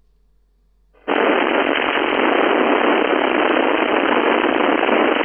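Radio receiver on 11-meter FM: near silence, then about a second in loud static hiss cuts in abruptly and holds steady, with no voice in it.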